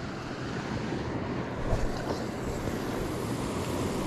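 Boat engine idling with a low steady hum, under wind buffeting the microphone.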